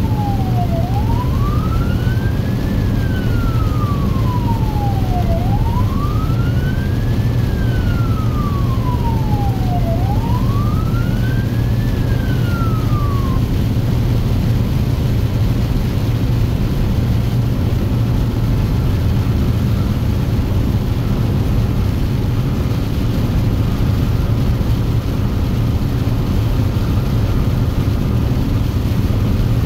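Emergency vehicle siren on a wail tone, its pitch sliding slowly down and up about every four and a half seconds, heard inside the cab over a steady low engine and road drone. The siren cuts off about 13 seconds in, leaving only the engine and road drone.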